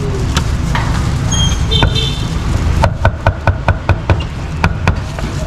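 Cleaver chopping meat on a chopping block: a rapid run of sharp, even strokes, about five a second, lasting about two seconds in the second half, over a steady low rumble of market and traffic. A few short high-pitched tones sound briefly near the middle.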